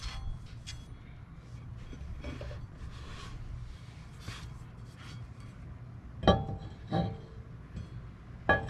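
A new cast-iron brake rotor clinking as it is handled and offered up to the wheel hub studs: three sharp metallic clinks with a brief ring, about six, seven and eight and a half seconds in, the first the loudest. Before them, faint light ticks and scraping over a steady low hum.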